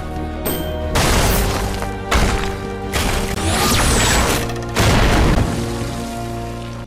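Cartoon soundtrack music with sustained notes, punctuated by several heavy booming crashes of impacts, roughly one a second in the first half and another near five seconds in.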